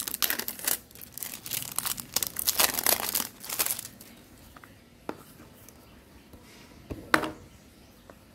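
Clear plastic wrap being torn and peeled off a small cardboard product box, crinkling for about four seconds. A small click follows, then a sharp knock near the end as the box is handled.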